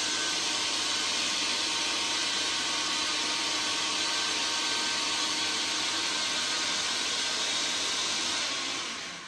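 Electric blender running steadily as it blends dragon fruit and milk into a smoothie, then switched off near the end, the motor winding down.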